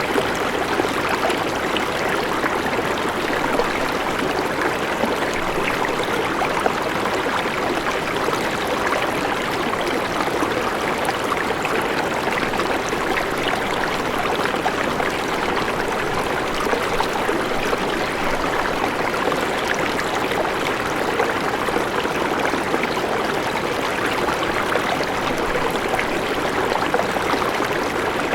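River water flowing, a steady, unbroken rush of running water.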